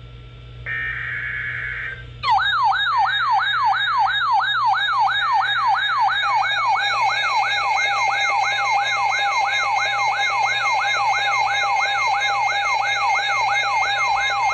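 Emergency Alert System broadcast: a brief burst of digital header data tones, then a loud electronic siren-style attention signal, its pitch sweeping up over and over at about three sweeps a second.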